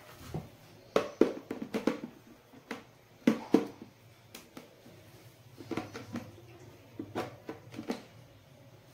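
Irregular clicks and knocks in short clusters as the parts of a vacuum cleaner are handled and fitted together; the motor is not running.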